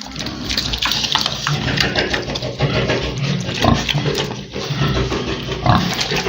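Pigs grunting and squealing, many calls overlapping without a break.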